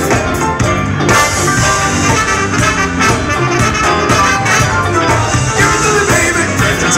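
Live funk and soul band playing at full volume: electric guitars, bass, drum kit, congas and a horn section of saxophones and trumpets, with a steady beat.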